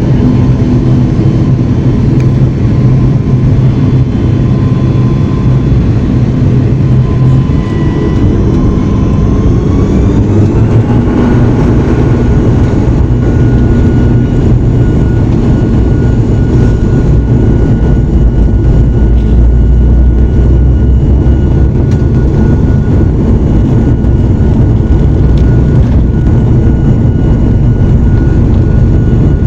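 ATR turboprop airliner's engines and propellers at takeoff power: a loud steady drone with a deep rumble. Its whine climbs in pitch about ten seconds in, then holds steady.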